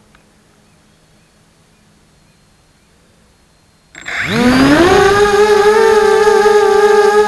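Racing quadcopter's ZMR 1804 2200kv brushless motors with 5030 props spooling up: after about four seconds of faint hum, a sudden whine rises in pitch over under a second and settles into a steady, loud high-pitched drone.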